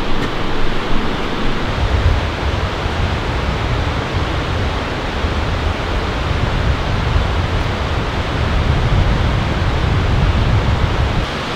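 Steady rushing of river water, with a low wind rumble on the microphone from about two seconds in.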